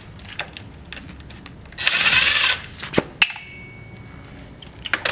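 Small metal hardware and hand tools clinking and knocking as they are handled and set down: scattered sharp clicks, a brief metallic rattle about two seconds in, then a few more clacks near the end.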